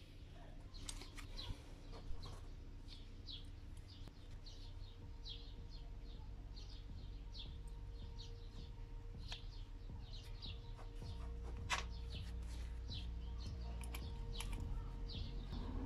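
Small birds chirping over and over, short high chirps every fraction of a second, over a steady low hum. A few sharp clicks of metal valve parts being handled, the loudest about two seconds in and near twelve seconds.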